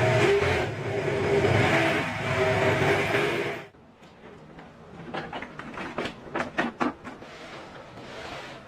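Miniature V8 engine of an RC car running steadily; it cuts off abruptly about three and a half seconds in. Afterwards comes a quick run of light clicks.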